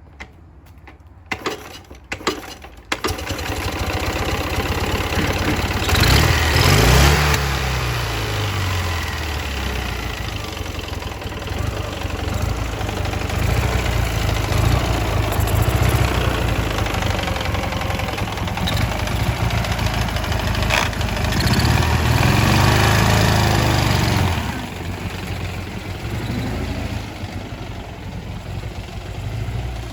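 Ural motorcycle's flat-twin engine, with a knock, catching about three seconds in after a few clicks, then running at idle, revved up twice.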